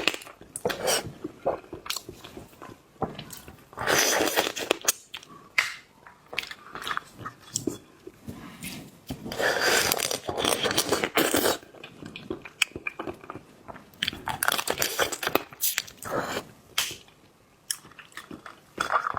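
Close-miked eating of shellfish: wet chewing and crunching with scattered sharp clicks. The louder, longer bursts come about four seconds in, around ten to eleven seconds, and around fifteen seconds.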